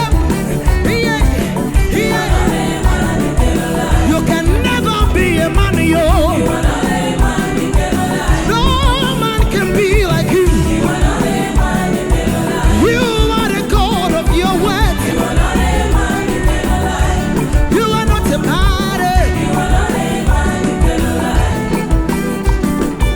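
Upbeat African gospel band music with a steady, pulsing beat and a wavering lead melody over it.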